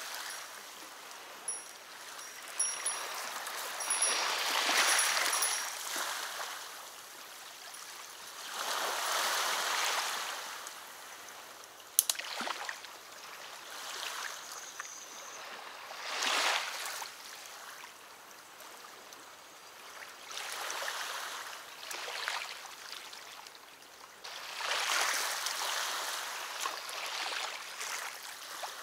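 River water washing against the bank in irregular swells every few seconds. Faint high bird chirps come near the start, and a single sharp click about twelve seconds in.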